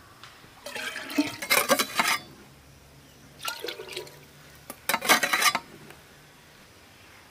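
Liquid pouring and splashing into a container in three bursts, the first and longest about a second and a half.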